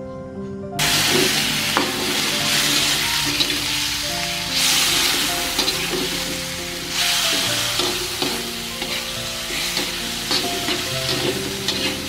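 Meat frying in a hot wok, sizzling loudly while it is stirred and turned with a spatula, with small clicks of the spatula against the pan. The sizzle starts suddenly about a second in and swells louder a few times.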